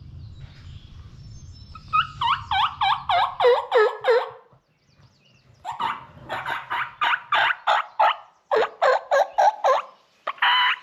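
Turkey yelping: three runs of short, loud, evenly spaced yelps, about four or five a second. The first run steps down in pitch. A low steady rumble sits underneath until about halfway through.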